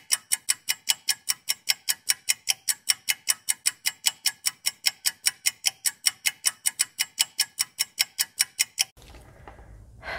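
Clock-ticking sound effect: rapid, perfectly even ticks that stop suddenly about nine seconds in, leaving faint room tone.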